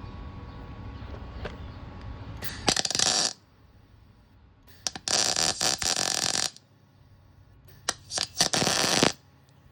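MIG welder laying tack welds: three bursts of welding arc, the first short and the next two about one to one and a half seconds each, tacking a nut onto a snapped exhaust header stud.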